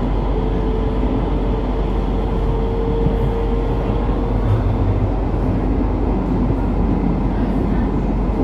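Cologne Stadtbahn light-rail car running, heard from inside the car by the doors: a steady rumble of wheels and running gear, with a held higher tone through the first four seconds or so.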